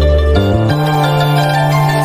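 Background music: sustained tones, with a change of chord about half a second in.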